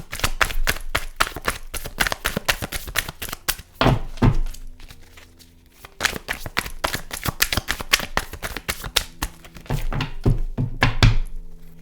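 A deck of tarot cards being shuffled by hand: a rapid run of card clicks and slaps. It pauses briefly about five seconds in, then starts again, with a few dull thumps of the deck.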